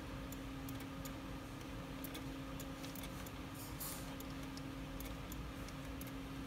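Computer mouse clicking now and then, light irregular clicks over a steady low hum, with a brief soft rustle just before four seconds in.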